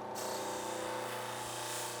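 Electric power tool running steadily: a constant hum with a hiss over it, cutting in suddenly at the start.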